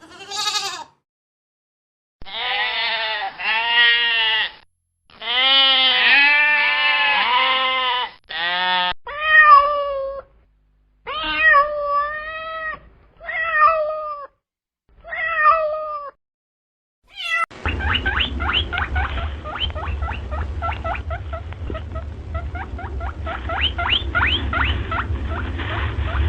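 Cat meowing in a series of short clips: first long, drawn-out meows that rise and fall in pitch, then a run of shorter meows. From about 17 seconds in, a different clip follows with a steady low noise and rapid short calls over it.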